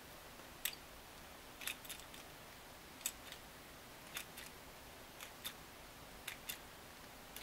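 Faint light clicks and taps, about a dozen at irregular intervals, from the small metal contacts and plastic housing of a Singer sewing machine foot controller being handled and pressed by hand.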